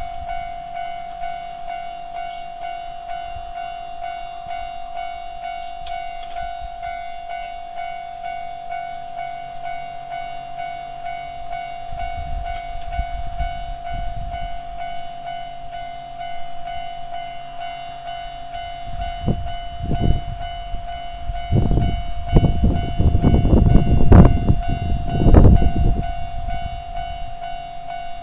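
Japanese railway level-crossing warning bell ringing continuously in a steady electronic tone. Over the second half a train passes over the crossing, its low rumble and repeated wheel clacks building to their loudest a few seconds before the end while the bell keeps ringing.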